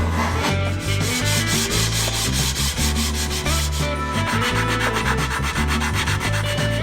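Sandpaper rubbing on wood in quick, even back-and-forth strokes, over background music.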